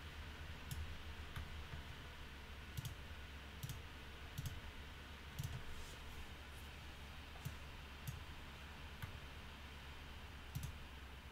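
Computer mouse clicks, about a dozen, some in quick press-and-release pairs, spread unevenly as dropdown menu options are picked, over a faint low hum.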